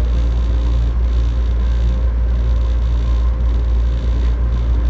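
Rubber-tyred Taipei Metro Wenhu line train running at speed, heard from inside the front car: a steady low rumble with a faint steady whine over it.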